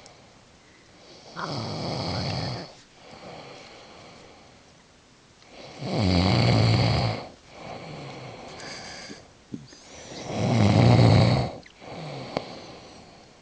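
A man snoring in his sleep: three loud, deep snores about four and a half seconds apart, each lasting about a second and a half, with quieter breaths between them.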